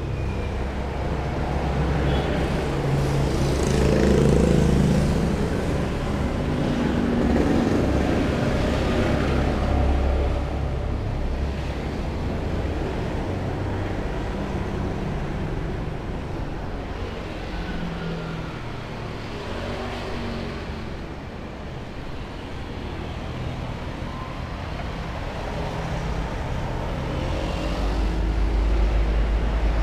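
Road traffic going by on the street: a steady rumble of passing vehicles that swells as they pass, notably about four seconds in, from about seven to ten seconds, and again near the end.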